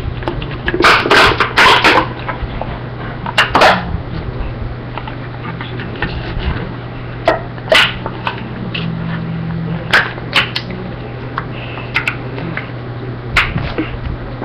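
Scattered sharp knocks and clicks, several bunched together near the start, over a steady low hum.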